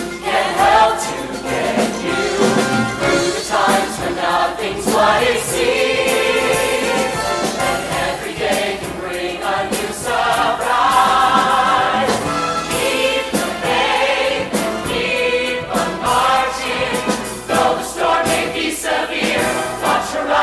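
Full musical-theatre chorus of men and women singing a show tune together.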